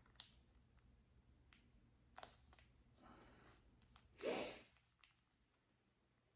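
Near silence with a few faint clicks and one brief rustle about four seconds in, from handling and eating a fast-food meal.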